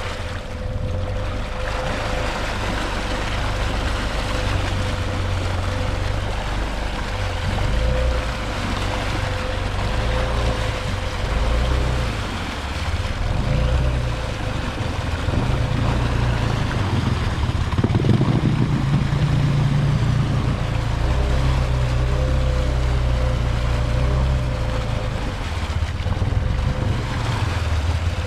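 2015 Honda Rubicon 500 ATV's single-cylinder engine running through mud and water, revving up and down with the throttle, with a rushing splash of water and mud and a steady high whine over it.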